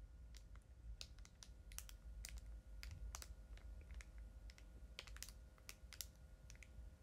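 Faint, irregular little clicks and crackles of a small plastic piping bag being squeezed as cream is piped out.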